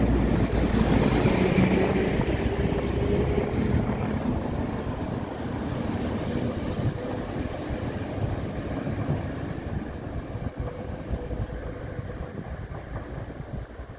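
Class 197 diesel multiple unit pulling away and accelerating hard, its engine and running noise fading steadily as it draws off into the distance.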